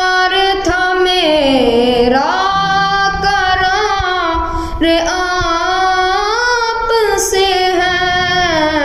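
A boy singing a naat, an Urdu devotional poem in praise of the Prophet, unaccompanied. He holds long drawn-out notes that slide up and down in pitch, with short breaths between phrases.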